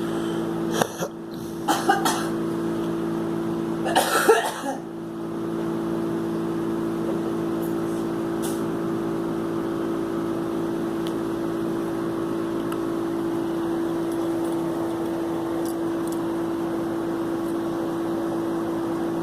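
A girl coughing: a single cough about a second in, a couple more around two seconds, and a longer coughing fit at about four seconds. A steady low hum continues underneath throughout.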